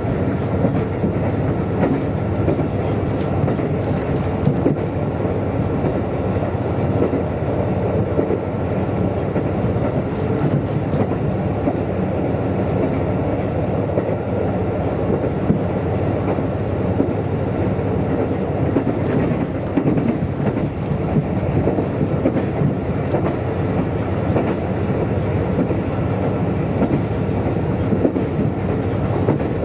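A KiHa 185 series diesel railcar underway, heard from inside the car: the steady rumble of its diesel engine and wheels on the rails, with occasional faint clicks from the track.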